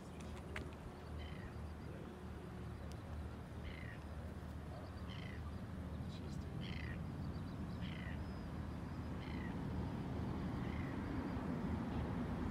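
A bird giving a short, downward-sliding call over and over, about every second and a half, over a steady low rumble that grows a little toward the end.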